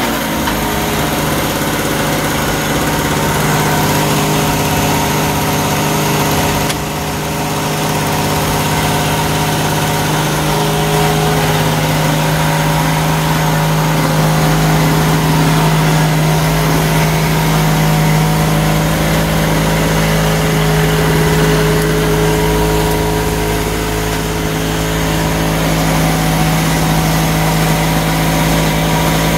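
Small portable generator engine running steadily, a loud, even hum.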